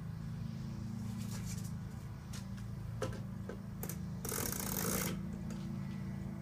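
Packing material rustling and a few small clicks as cuckoo clock weights are unwrapped and handled, with a longer rustle about four seconds in, over a steady low hum.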